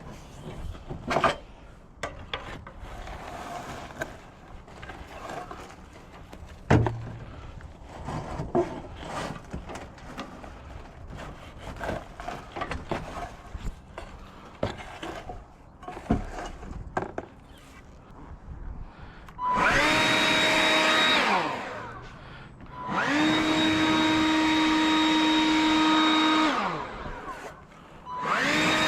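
Scattered knocks and rustling, then a small electric motor spinning up with a rising whine, running steadily for about two seconds and winding down, running again for about three and a half seconds, and starting up once more near the end.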